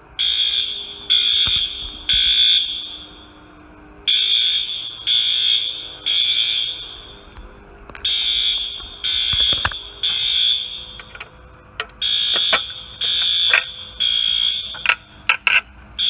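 Fire alarm horns sounding in the temporal-three evacuation pattern: three half-second blasts a second apart, then a pause, repeated every four seconds, set off by a manual pull station. In the second half come a few sharp clicks and knocks as the pull station's cover is opened.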